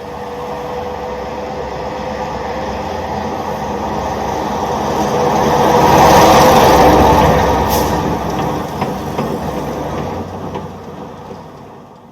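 A road vehicle driving past: its engine and tyre noise grow louder, peak about halfway through, then fade away, with a few light clicks or rattles as it recedes.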